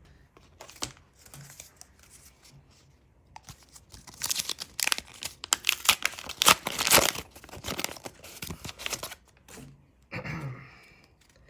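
Trading-card pack wrapper being torn open and crinkled by hand: a few light handling clicks, then a dense stretch of crackling tearing for about five seconds in the middle.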